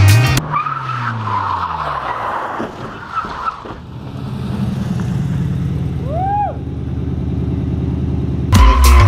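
Nissan 240SX (S13) drift car sliding by with its tyres squealing and its engine revs falling away, then a car engine idling steadily. A brief high chirp comes about six seconds in, and music cuts back in near the end.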